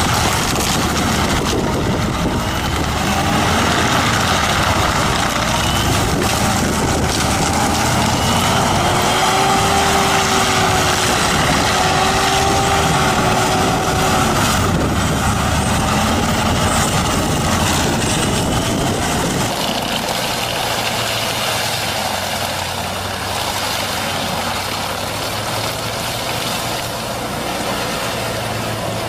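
Heavy machinery with a large engine running steadily, with short whining tones rising and falling over it; about two-thirds through it changes to a quieter, steady low engine hum.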